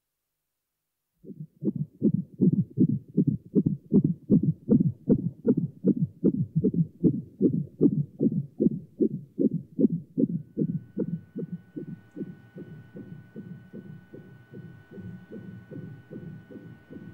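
Fetal heartbeat heard through a Doppler ultrasound monitor: a fast, regular pulse of about two and a half beats a second, starting out of silence about a second in. About two-thirds of the way through the beats grow fainter and a faint steady hum comes in under them.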